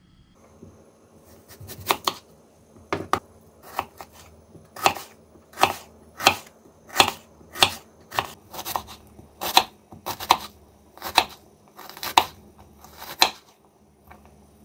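Kitchen knife chopping an onion on a wooden cutting board: a run of sharp knocks of the blade on the board, about one and a half a second and a little uneven, starting about a second and a half in and stopping about a second before the end.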